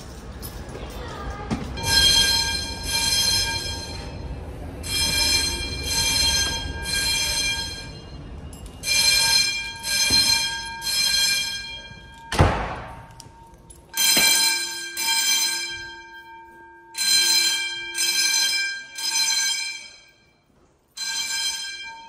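Fire alarm bells ringing in the temporal code-3 pattern: three rings about a second apart, then a pause, repeated. One loud thump comes about halfway through.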